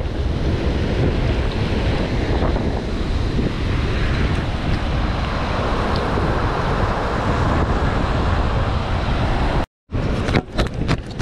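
Wind buffeting the microphone over the sound of surf, a steady hiss with heavy rumble. It cuts out for a moment near the end, and then comes back with several sharp clicks.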